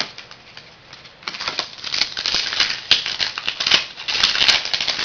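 Crinkling and rustling of a trading-card pack's foil wrapper and the cards inside being handled, a dense crackle that starts about a second in and carries on to the end.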